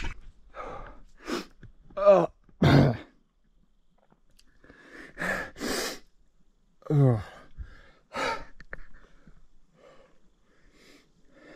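A man's breath noises while trying to unblock his ears: short exhalations and falling vocal 'ahh' sighs, two sharp sniffs a little past the middle, and a yawn near the end.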